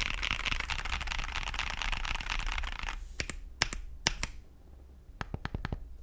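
Mechanical keyboard typing on Akko CS Lavender Purple tactile switches in a GMMK Pro with a polycarbonate plate and foam, generally high-pitched. Fast continuous typing thins out about three seconds in to a few separate keystrokes.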